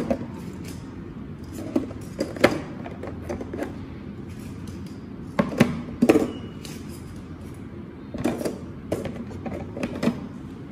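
Brown eggs being set one by one into a plastic storage basket: light clicks and taps of eggshell against the plastic and against other eggs, at irregular intervals, over a low steady hum.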